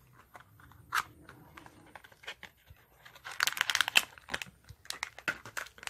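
A small cardboard toy box being opened, with a click about a second in, then a foil blind bag crinkling as it is pulled out and handled, loudest about three and a half seconds in.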